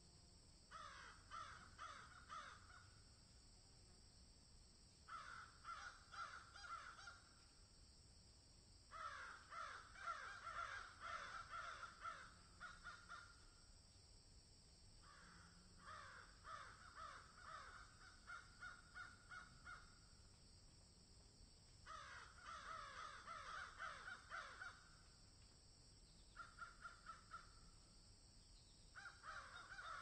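Crows cawing in repeated bouts, each a quick run of short caws, with pauses of a second or two between bouts, over a steady high background hiss.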